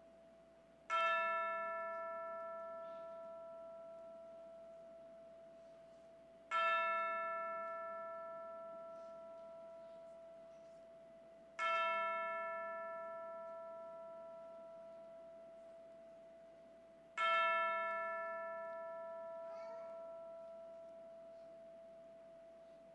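A single bell tolled slowly: four strikes of the same note about five and a half seconds apart, each left to ring out and fade before the next.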